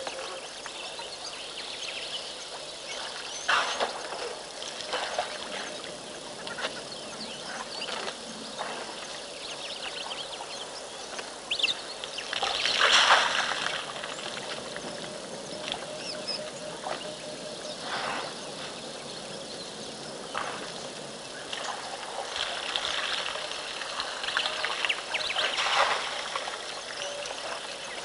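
Elephants moving in water, with trickling and repeated splashes and sloshes; the biggest splash comes about halfway through. Birds call now and then.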